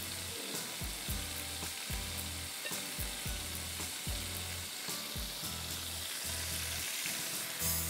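Marinated chicken skewers sizzling steadily as they fry in oil in a pan, with a few soft knocks.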